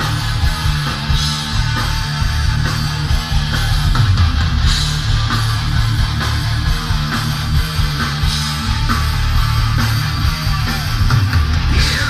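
A live thrash metal band playing an instrumental passage with distorted electric guitar, bass guitar and drums, with no vocals. The music is loud and continuous, with a heavy, boomy low end.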